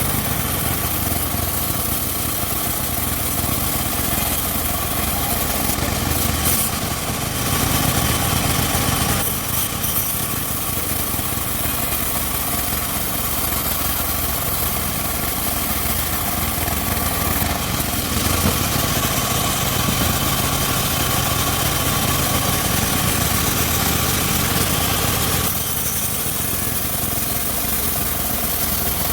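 Homemade circular sawmill running steadily, its engine and spinning blade making a continuous machine drone that changes character a couple of times.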